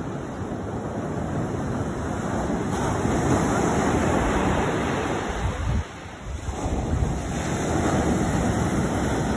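Ocean surf breaking and washing up a sandy beach, with wind buffeting the microphone. There is a brief lull about six seconds in.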